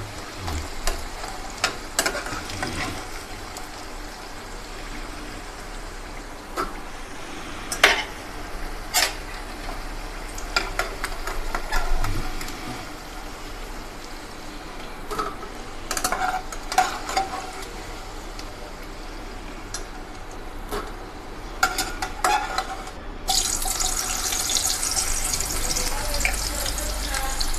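Raw banana slices sizzling in hot oil in an aluminium kadhai, with clicks and scrapes of a steel slotted spoon against the pan. Near the end fresh slices go into the oil and the sizzle suddenly grows louder and hissier.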